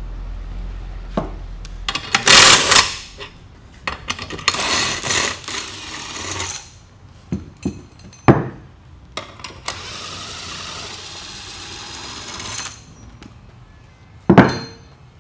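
Foam run-flat blocks and steel spreader plates being worked into an ATV tire by hand: several bursts of scraping and rubbing, with a few sharp knocks, the loudest about a second before the end.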